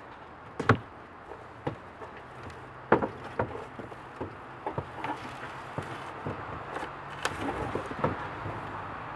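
Engine hoist being jacked up to lift a wooden lathe crate: irregular knocks and clanks from the hoist and the loaded crate, the two loudest about a second in and about three seconds in, with lighter clicks every half second or so after.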